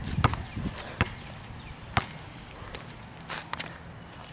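A basketball bouncing on a paved court: sharp knocks about a second apart, then two fainter knocks near the end.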